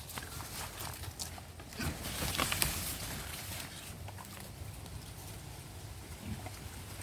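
Native pigs moving about in their pen: scattered light footfalls and knocks, with a louder rustle about two seconds in.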